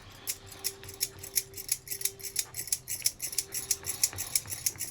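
A spoon beating burnt banana-leaf ash into thick honey in a bowl, clicking against the bowl in a quick even rhythm of about five strokes a second.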